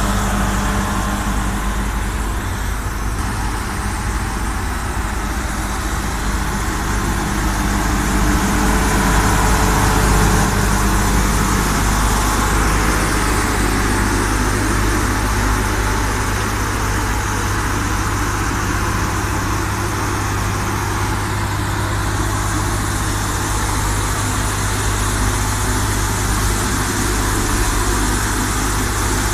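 Truck-mounted vacuum road sweeper at work: its four-cylinder diesel auxiliary engine running steadily, driving the suction fan and the spinning side brush as it sweeps along the kerb. A constant low engine hum sits under a steady rushing hiss.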